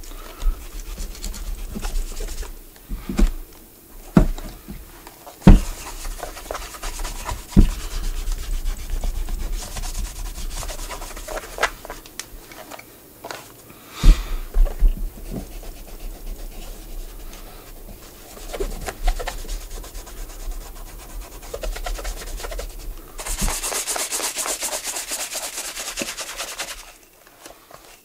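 Brushing and rubbing on a leather shoe as cleaner and conditioner are worked in, a continuous scratchy scrubbing with several sharp knocks in the first half. Near the end there are a few seconds of steadier, hissier brushing.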